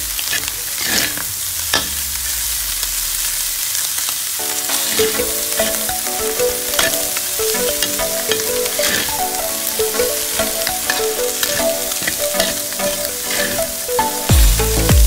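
Fish intestines with chopped chilli, shallots, garlic and lemongrass stir-frying in hot oil in a metal pan: steady sizzling, with frequent clicks and scrapes as they are stirred. Background music comes in about four seconds in.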